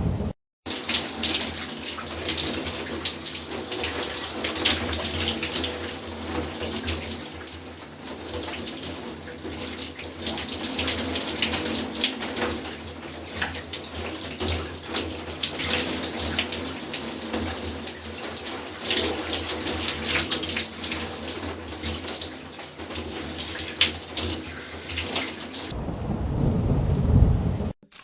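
Water running from a tap into a sink, splashing steadily for about 25 seconds. Near the end it cuts to a short, deep, noisy sound lasting about two seconds.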